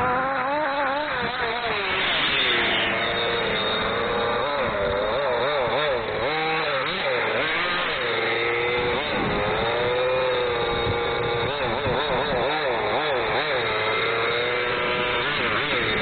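Two-stroke WildChild engine of a 1/5-scale FG Baja buggy running and being revved up and down over and over, its pitch rising and falling every second or so.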